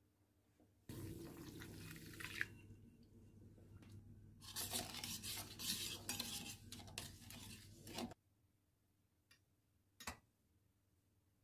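Water poured into a stainless steel bowl of instant coffee and sugar, then a metal spoon stirring briskly, clinking and scraping against the bowl for a few seconds until it stops. About ten seconds in comes a single light tap as a ladyfinger is set into a glass baking dish.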